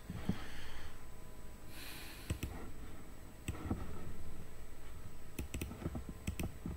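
Computer mouse clicks, scattered and sharp, several in quick succession in the second half, with two brief soft hissy rustles in the first two seconds.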